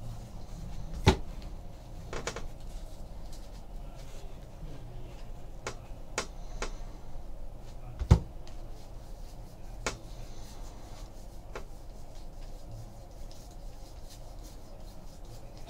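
Trading card packs and cards being handled on a tabletop: two sharp knocks, about a second in and about eight seconds in, with lighter clicks and rustles between them.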